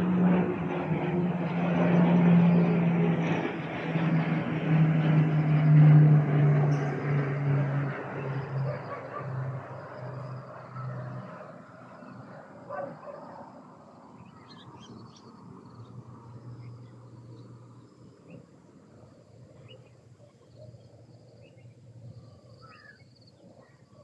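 An aircraft flying over: a loud engine drone with a low hum that slowly drops in pitch and fades away over about ten seconds. Afterwards, faint bird chirps over a quiet outdoor background.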